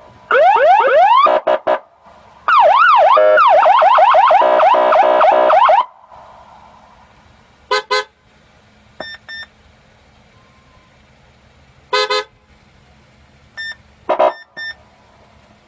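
Electronic car siren of the police-style SGU type running through its signals. It gives quick rising wails, then about three seconds of fast up-and-down yelping, then short separate chirps and beeps.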